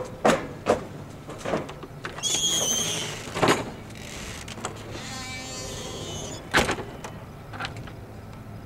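Low steady hum of a Cat 797B mining haul truck standing with its engine running. Several sharp knocks and thumps are the loudest sounds. A brief high whine comes about two seconds in.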